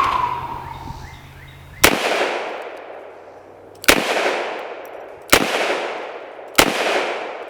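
Four shots from a Taurus .500 Magnum revolver firing 300-grain hollow-point rounds, at uneven spacing of about two seconds down to just over one, each a sharp crack followed by a long echoing decay.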